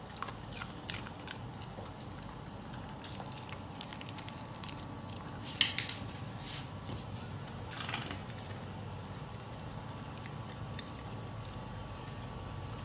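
Small dogs crunching and chewing small pieces of ice, with scattered sharp cracks; the loudest comes a little over five seconds in and another near eight seconds.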